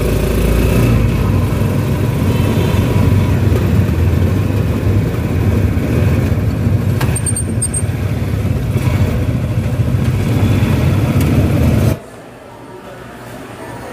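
Motorcycle engine running with road noise, heard from inside a tricycle's sidecar. About twelve seconds in it cuts abruptly to a much quieter indoor background.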